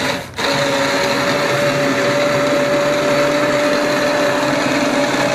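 Electric blender switched on about half a second in and running steadily at high speed, puréeing cooked vegetables, lentils and tomatoes into a sauce.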